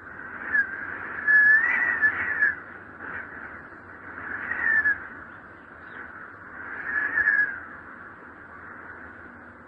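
Wind blowing in gusts with a howling whistle, swelling and fading three times, the first gust the loudest.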